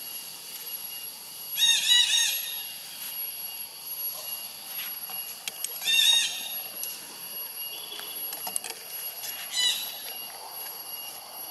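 Long-tailed macaque giving high, squeaky calls: three short bursts of quick rising-and-falling notes, a few seconds apart.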